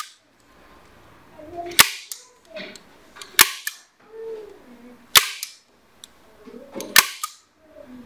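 Manual spring-loaded staple gun firing four times, a sharp snap about every 1.7 seconds, driving staples through carpet padding into the wall.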